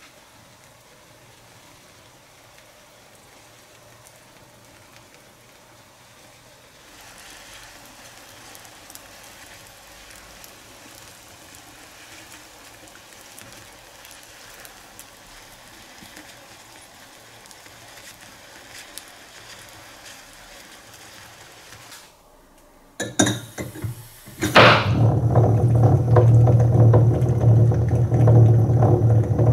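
Faint crackling hiss of popcorn scorching and smoking under a red-hot metal ball. About 23 seconds in, after a few short bursts, a red-hot metal ball in a glass of liquid sets off a loud, steady boiling rumble with a low hum.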